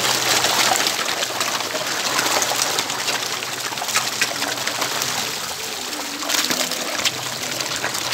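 A packed shoal of goldfish and other carp crowding and gulping at the water surface, making a constant crackling patter of small splashes and slurps.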